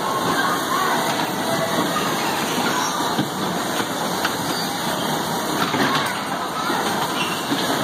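Steady din of a bumper-car ride in motion: the electric cars running over the floor with riders' voices and shouts mixed in, and a few brief knocks.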